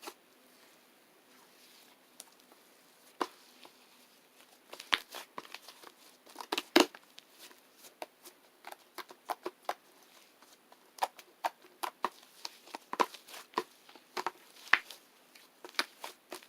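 Irregular crinkling and sharp clicks, in scattered clusters with short quiet gaps and one louder crackle about seven seconds in.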